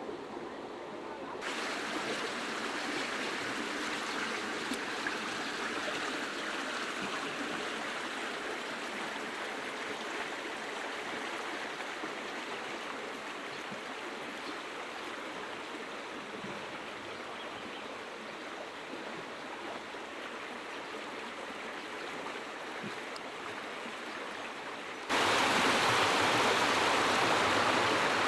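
Storm water rushing in a steady hiss. It steps up a little about a second and a half in and turns abruptly louder near the end.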